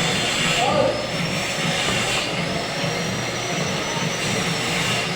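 AC TIG welding arc on aluminum, a steady buzzing hiss with a low hum under it.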